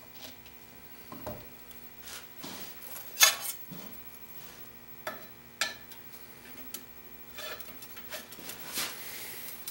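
A cast-iron hand plane and a steel rule being handled: scattered metallic clinks and knocks as the plane is set down upside down on its blocks and the rule is laid across its sole to check flatness. The loudest knock comes about three seconds in.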